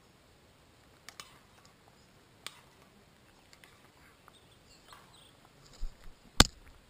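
Metal spoon clicking now and then against a steel camp pot as the pasta is stirred, followed by one sharp, louder knock near the end.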